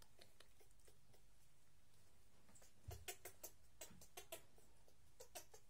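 A string of faint short clicks and ticks, about ten of them from about three seconds in, over a near-silent room.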